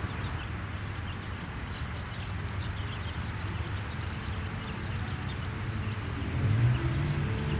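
Baby chicks peeping faintly in short, high chirps over a steady low rumble. Music fades in near the end.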